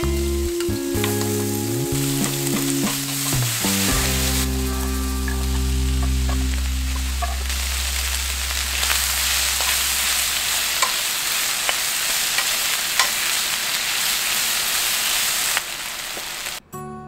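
Onions and vegetables sizzling in hot oil in a nonstick frying pan as they are stir-fried with a wooden spoon, with a few small clicks of the spoon. Background music plays over the first half.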